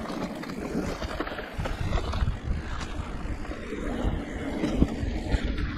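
Giant Reign E+ e-mountain bike rolling fast over a rough dirt singletrack: steady tyre rumble with irregular knocks and rattles as the bike hits bumps, and one sharper thump about five seconds in.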